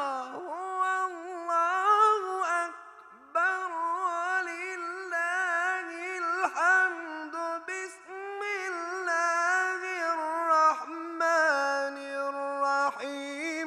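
A man's solo voice reciting the Quran in a melodic style, drawing out long vowels into ornamented, wavering held notes. There is a short pause for breath about three seconds in.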